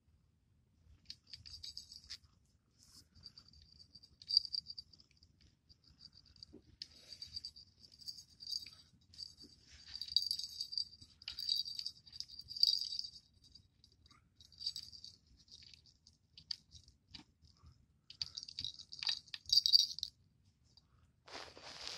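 Small brass jingle bell on a cat's pom-pom wand toy, jingling in irregular short shakes, loudest about halfway through and again near the end. A short rustling noise comes just before the end.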